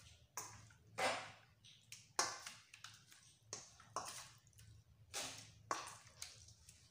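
Hands mixing raw fish pieces with spice marinade in a stainless steel bowl: a string of short, irregular handling sounds, about one or two a second, as fingers and fish move against the steel.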